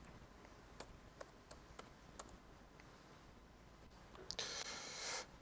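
Laptop keyboard being typed on: a handful of faint, sparse key clicks over the first couple of seconds while logging in. About a second before the end comes a short, soft rushing noise.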